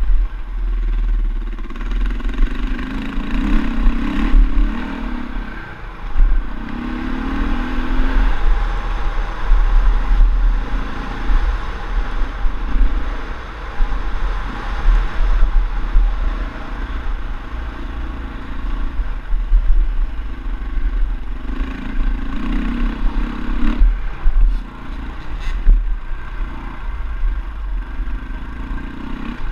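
KTM LC4's single-cylinder four-stroke engine running under a rider on a dirt track, revving up and easing off again and again, over a steady deep rumble. A few sharp knocks sound a little over three-quarters of the way through.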